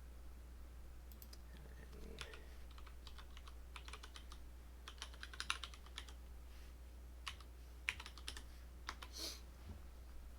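Computer keyboard typing: scattered keystrokes in short runs, some louder than others, over a steady low hum.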